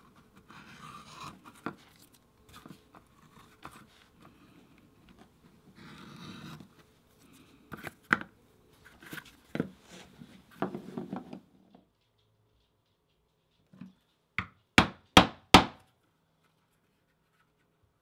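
Edge beveler shaving the edge of a leather case in short scraping strokes, with small knocks of tools on the work surface. Near the end, four sharp strikes in quick succession, about two and a half a second: a maul driving a stitching chisel into the leather.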